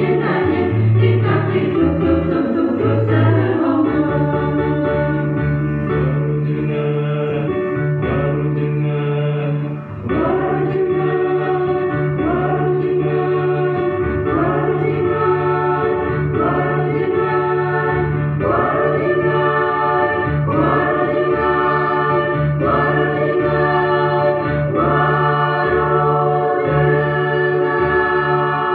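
A mixed choir of women's and men's voices singing in harmony over a steady, sustained low part. There is a brief pause about ten seconds in.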